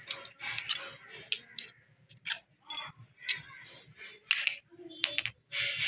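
Light metallic clinks and short scrapes as a motorcycle starter motor is pulled apart by hand, its end cover coming off the motor housing, in irregular bursts.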